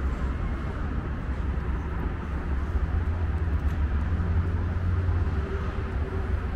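Steady outdoor city background noise, a low rumble with an even hiss above it and no distinct events.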